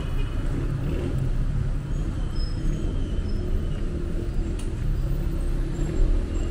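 City street traffic: cars driving past with a continuous low rumble of engines and tyres.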